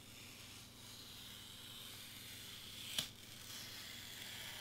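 Craft knife blade drawing through foam board: a faint, steady scratchy hiss, with one sharp tick about three seconds in.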